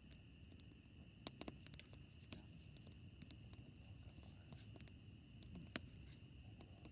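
Faint campfire wood crackling: scattered sharp pops, with a quick cluster of three about a second and a half in and a single louder pop near the end, over a low rumble and a steady thin high tone.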